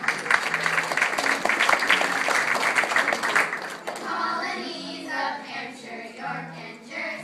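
Audience clapping over a musical accompaniment for the first few seconds. About four seconds in, a group of children starts singing with the music.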